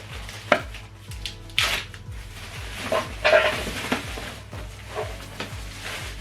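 Knocks and rustling of packaging being handled as a boxed subwoofer is unpacked, over background music with a steady bass line.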